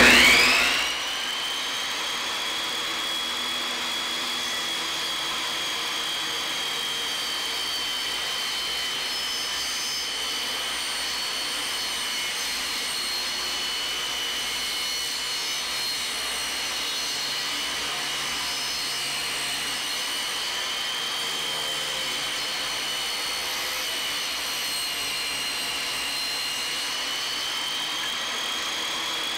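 Benchtop table saw switched on: its motor starts with a loud surge and a rising whine, then runs at a steady high whine. The pitch wavers only slightly as a thin barn-wood board is pushed by hand through the blade.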